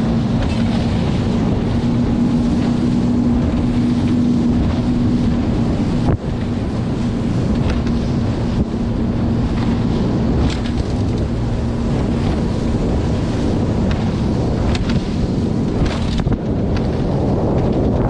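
Evinrude 90 HO outboard motor running steadily as the boat cruises, with heavy wind buffeting on the microphone. A steady hum from the motor fades out near the end, and there are a few brief knocks.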